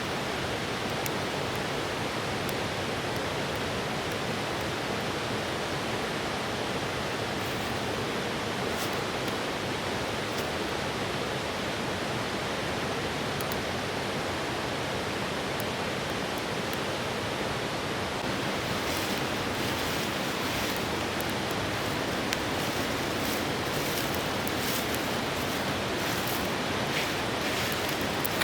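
Steady rushing of a river's flowing water. About two-thirds of the way in, faint light ticking joins it.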